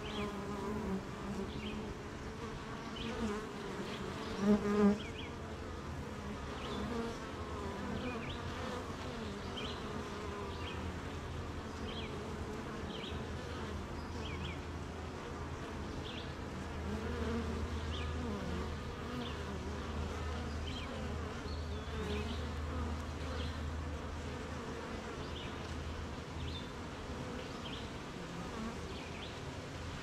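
Honeybees buzzing at the hive: a steady, layered hum of many bees, with single buzzes swelling and fading. About four and a half seconds in, a bee buzzes loudly twice as it passes close by.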